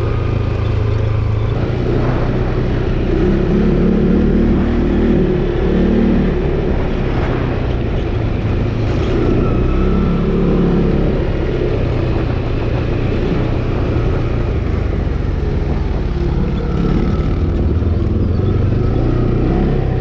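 ATV engine running steadily while being ridden, its note rising and falling several times with the throttle.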